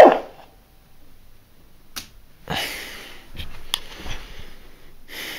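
Electronic sound effect of a proton pack prop, a falling whine that dies away in the first moment, followed by quiet with a few sharp clicks and soft rustling handling noise.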